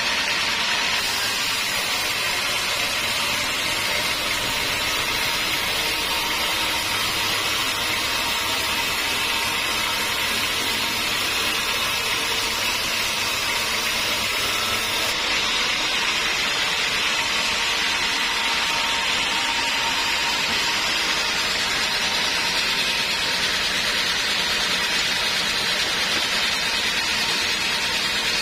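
Sawmill band saw running steadily as its blade saws through teak logs, giving a continuous loud hiss.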